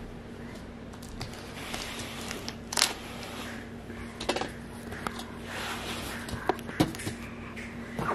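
Tape and paper scraps rustling and crinkling, with scattered small taps and clicks of plastic toy animals being handled and set down. A faint steady hum runs underneath.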